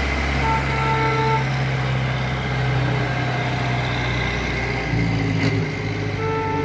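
Trucks and a pickup passing close by with their engines running in a steady low hum. A vehicle horn sounds briefly about half a second in and again near the end.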